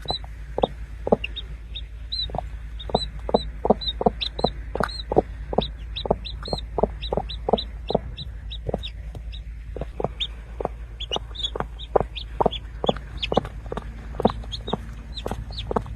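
Newly hatched chicks peeping in quick high chirps, over a steady run of short low clucks, about two to three a second, and a constant low hum.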